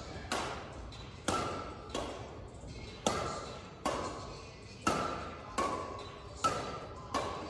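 Badminton rackets striking a shuttlecock back and forth in a rally, a sharp ringing hit about once a second, each echoing in a large hall.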